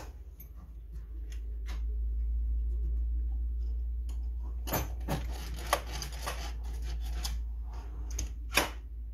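Wooden router table fence being handled and slid on the plywood table top: scattered knocks and clicks of wood on wood, a busier run of knocks and scraping about five seconds in, and a sharp knock near the end, over a low steady hum.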